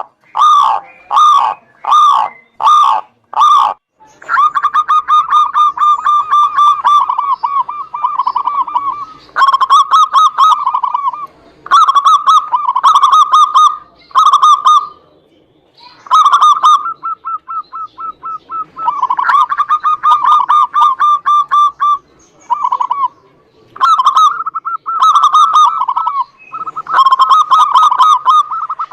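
Zebra doves (perkutut) cooing: a run of separate notes about two a second, then long rapid rolling trills of cooing notes in phrases with short pauses between.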